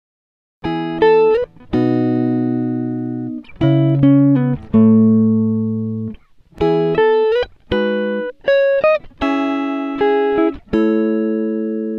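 Background music: a melody of plucked notes, each starting sharply and ringing away, coming in after a brief silence at the start.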